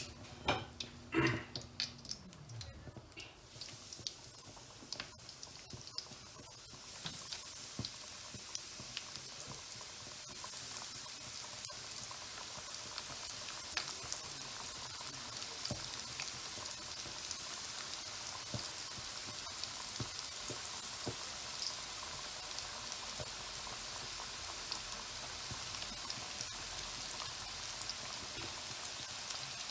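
Battered chicken strips deep-frying in hot oil in a pan: a steady crackling sizzle that sets in about seven seconds in and grows a little louder around ten seconds. A few knocks come in the first two seconds.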